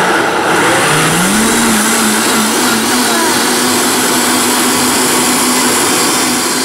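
Vitamix 5200 blender running loud, pureeing strawberries. Its motor climbs in pitch about a second in, then holds a steady high speed.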